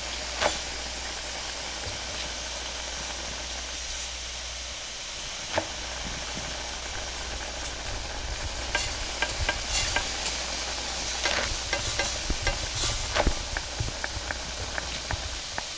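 Hands pressing and spreading oiled roti canai dough on a stainless steel counter: a few soft taps early on, then a busy run of slaps and taps from about halfway, over a steady hiss and low hum.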